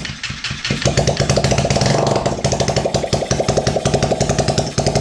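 Honda CBR250R single-cylinder engine, with no exhaust fitted, starting up and catching within about a second, then running at a steady rapid, even pulse before shutting off near the end. This is a first test start after the engine swap.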